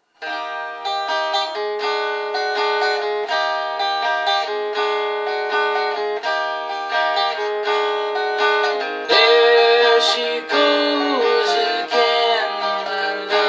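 Guitar playing the song's intro: a steady pattern of picked and strummed chords, growing louder about nine seconds in.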